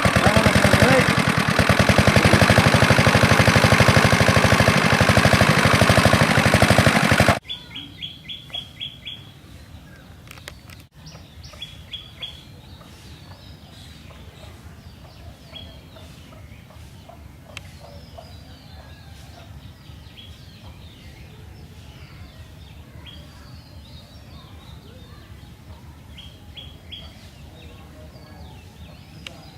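Motorcycle engine running close by, loud and steady, cutting off suddenly about seven seconds in. Then birds chirping, with repeated quick trilled series of chirps.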